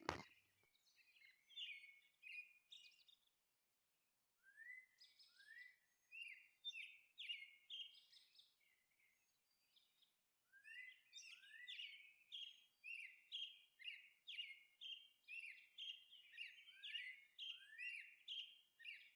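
Faint birds chirping in short rising chirps, scattered at first, then coming regularly at about two a second through the second half.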